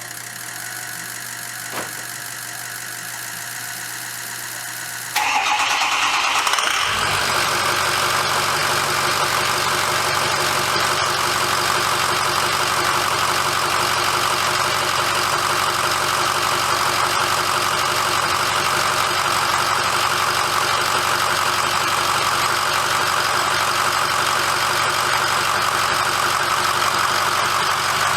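The 6.0-litre Power Stroke V8 turbo-diesel of a 2006 Ford F350 cranks about five seconds in, after a steady hum, and catches within a couple of seconds, then idles steadily. It starts right up on its first try after both fuel filters were changed and air was bled from the fuel system.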